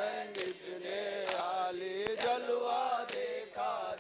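Male voices chanting a Muharram lament (noha) together, with sharp chest-beating strikes (matam) about once a second.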